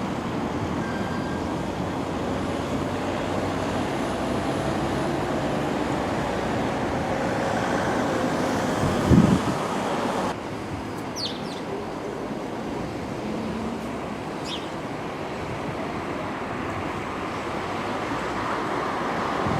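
Outdoor town ambience of road traffic: a steady wash of vehicle noise with a faint passing engine tone, a single short thump about nine seconds in, and a few brief high chirps later on.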